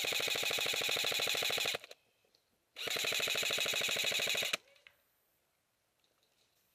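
Airsoft rifle firing on full auto in two long bursts of rapid, even shots, each about two seconds long, about a second apart.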